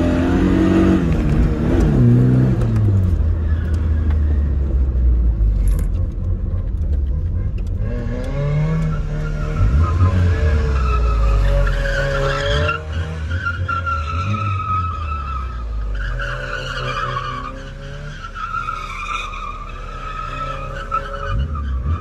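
Tofaş Doğan SLX engine revving up and down as the car is slid, heard from inside the cabin. From about eight seconds in, tyres squeal in wavering tones over the engine.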